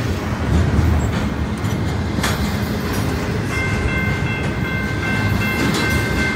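Double-stack intermodal well cars rolling past: a steady rumble of steel wheels on rail. About halfway through, a steady high-pitched ringing of several tones joins in and keeps going.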